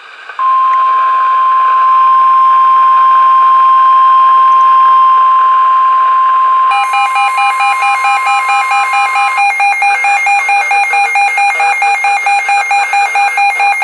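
NOAA Weather Radio's steady warning alarm tone, a single loud unbroken beep, sounding for a tornado warning. About seven seconds in, a second electronic alarm joins it, beeping rapidly at about four pulses a second. This second alarm carries on after the steady tone stops about nine seconds in.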